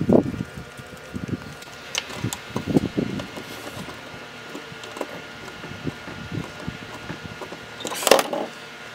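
Hands working stripped cord wires into a replacement plug: irregular small clicks, taps and rustles, busiest in the first few seconds, with a louder scrape or rub near the end, over a faint steady hum.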